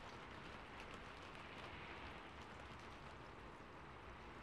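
Rain on a rooftop, a recorded ambience track: a faint, steady hiss of rainfall with small drop ticks scattered through it.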